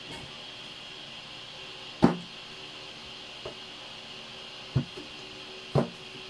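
Kitchen knife knocking against a thin plastic cutting board as it cuts lengthwise through a bitter gourd: a sharp knock about two seconds in, a faint one, then two more knocks near the end, over a steady background hum.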